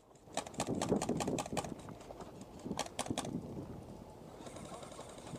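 Footsteps of a player on the move, a quick run of irregular crunches and clicks over the first three seconds, then a faint steady hiss.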